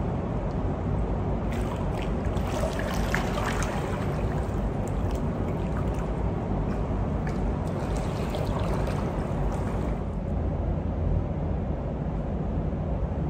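Pool water sloshing and lightly splashing around a person wading sideways through chest-deep water. About ten seconds in the splashing stops and a steady low rumble remains.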